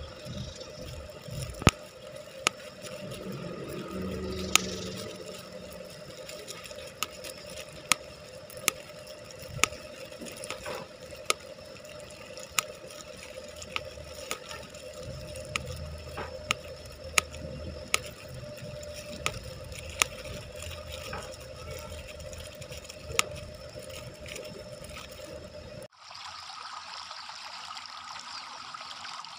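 Bubble wrap squeezed by hand, its bubbles popping one at a time in sharp, uneven pops, about one or two a second, over the crinkle of the plastic. About 26 seconds in it cuts to a steady hiss from a covered pot boiling on a stove.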